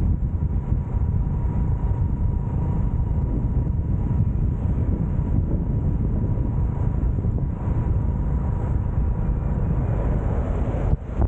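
Wind buffeting the microphone of a moving motorcycle over a steady low rumble of engine and road noise, with a faint steady whine; it drops out briefly near the end.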